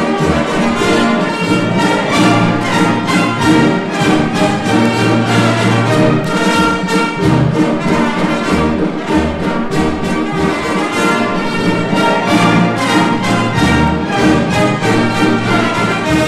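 Orchestral music with brass and a steady beat, laid over the footage as a soundtrack.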